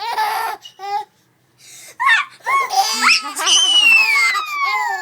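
Baby laughing in high-pitched squeals and giggles at a pretend sneeze, with a short pause about a second in and a long squeal falling in pitch near the end.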